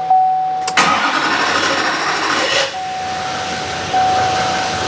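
L5P Duramax V8 turbodiesel starting about a second in after a fuel filter change: it catches, runs loudly for about two seconds, then settles to a steady idle, showing the fuel system is primed. The cab's warning chime dings repeatedly throughout.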